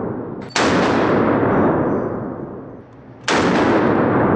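Two shots from a Glock 19 Gen 4 9 mm pistol at an indoor range, the first about half a second in and the second nearly three seconds later. Each is a sharp crack followed by a long echo that fades over a second or two.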